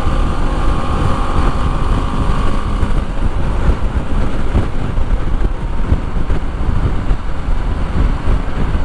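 BMW G310 GS's single-cylinder engine running steadily in sixth gear at road speed, heard from the rider's camera with heavy wind rumble on the microphone.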